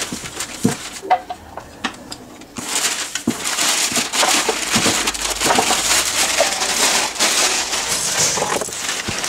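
Crumpled packing paper crinkling and rustling as hands rummage through it inside a cardboard box, dense from about three seconds in, with a few light knocks against the box.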